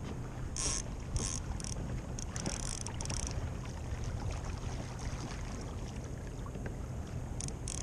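Small waves lapping and splashing against a Hobie Outback kayak's hull in short bursts, several in the first three seconds and more near the end, over a steady low rumble.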